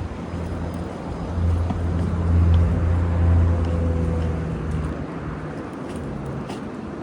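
A motor vehicle passing: a low engine rumble that swells over a couple of seconds, peaks near the middle, then fades away.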